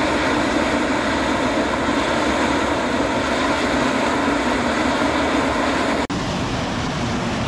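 Steam and hot water jetting hard from a fumarole (ausol), a loud, steady rushing hiss. It cuts out for an instant about six seconds in, then carries on.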